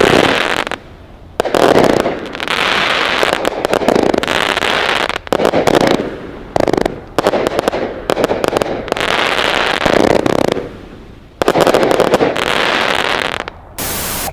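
Consumer aerial finale-set cakes firing rapid volleys of shots, loud clusters of a second or three at a time with short pauses between them.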